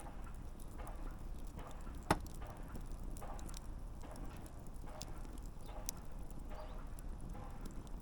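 Wood campfire burning: a low steady rumble of flames with scattered small crackles and one sharp, louder pop about two seconds in.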